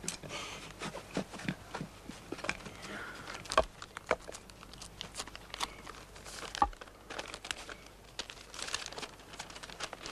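Paper rustling and crinkling as a folded letter is opened and unfolded by hand, with two louder sharp crackles of the paper, about a third and two thirds of the way through.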